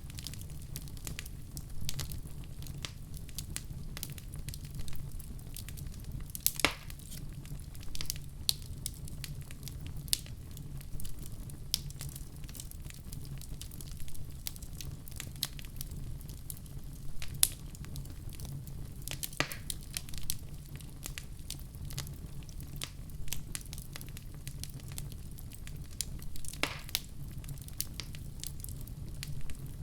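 Wood fire burning in a fireplace: a steady low rumble of flames with frequent irregular crackles and pops, a few louder snaps among them.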